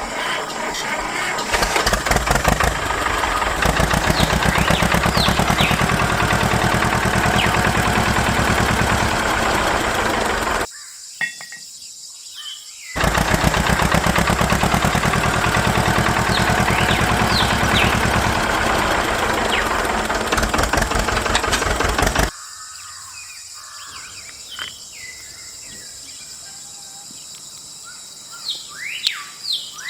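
A small motor runs with a fast, even rattle for about ten seconds, stops abruptly, starts again for about nine more seconds and cuts off sharply. Afterwards birds chirp faintly.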